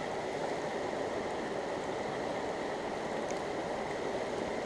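Small mountain stream rushing steadily over rocks.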